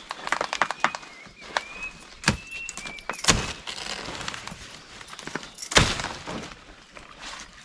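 A blade chopping into a banana plant's soft stem to bring down the bunch: three heavy thuds among many lighter cracks and crackles.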